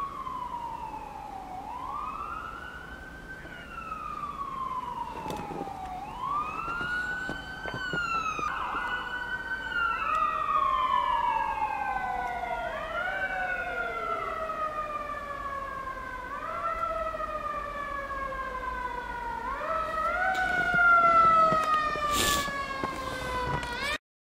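Emergency vehicle sirens wailing, each sweep rising quickly and falling slowly, repeating every two to three seconds. A second siren joins about eight seconds in, overlapping at a lower pitch, and both grow louder before cutting off suddenly near the end.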